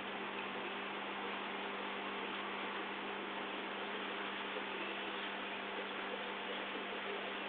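Steady electrical hum over a constant hiss, unchanging throughout.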